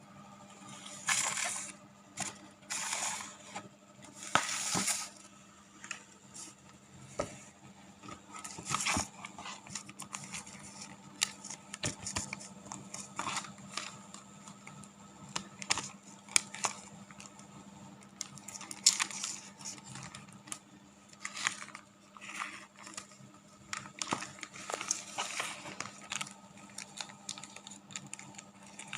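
Irregular crinkling and rustling of material being handled, with scattered sharp clicks and taps, over a faint steady hum.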